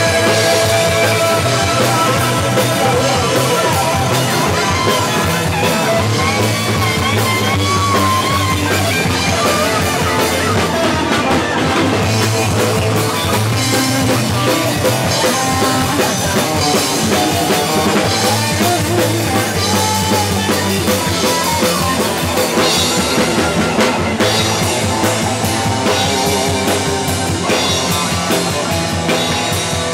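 Live rock band playing loudly and steadily: electric guitar over a drum kit, with Zildjian cymbals.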